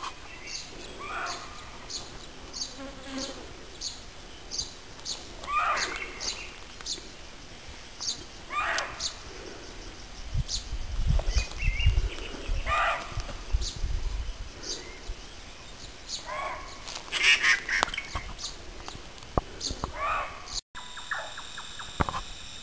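Barking deer (muntjac) barking, single harsh barks repeated about every three to four seconds, with a faster run of short high chirps behind them in the first half.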